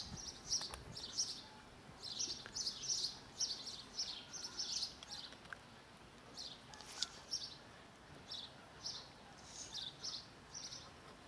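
Small birds chirping in quick series of short high chirps, with brief pauses between the series.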